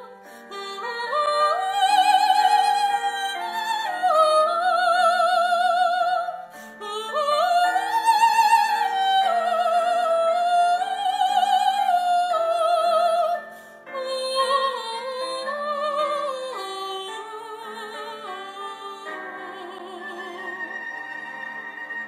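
Operatic singing by a high voice with wide vibrato over a sustained accompaniment, sliding up into long held notes and growing quieter in the last third.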